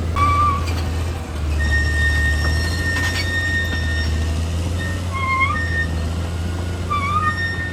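Caterpillar D6R XL crawler bulldozer's diesel engine running steadily, with high-pitched squeals over it: one long steady squeal and several short bending squeaks.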